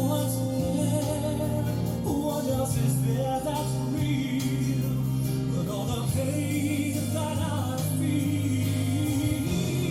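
Background song: a singing voice with choir-like backing over steady instrumental accompaniment.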